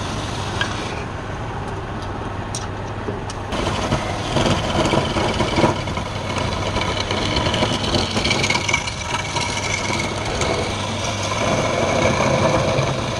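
Wood lathe running with a steady motor hum. From about three and a half seconds in, a louder, uneven scraping rides over it as a turning tool cuts the spinning wood.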